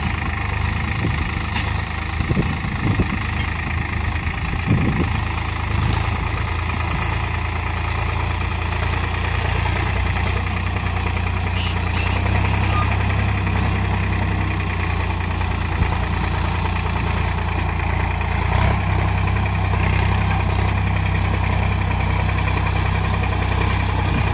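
Sonalika DI 745 III Sikandar tractor's three-cylinder diesel engine running steadily under load as it hauls a heavily laden trolley out of a soft field, pulling it comfortably. It grows a little louder about halfway through.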